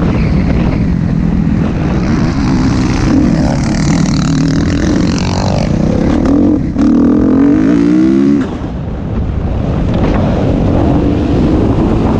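Motocross dirt bike engine revving up and down as it is ridden, heard from onboard with wind noise on the microphone. About two-thirds of the way in it rises through a hard, loud rev, then drops off suddenly.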